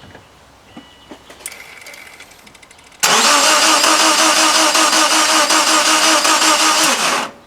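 Starter motor cranking the Subaru Impreza's EJ20 boxer engine for about four seconds without it catching, in a steady pulsing whir that starts suddenly about three seconds in and stops near the end. It is the crank-but-no-start fault. A few faint clicks come before it.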